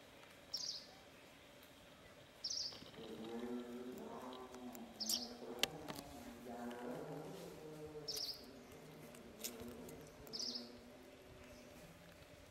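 A short high chirp repeats about every two seconds, six times, with a low voice-like sound through the middle seconds.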